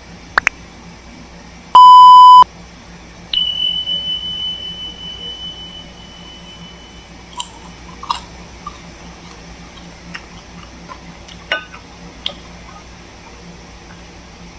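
A loud electronic beep about half a second long, followed by a higher ringing tone that fades away over a few seconds, with a few light clicks before and after.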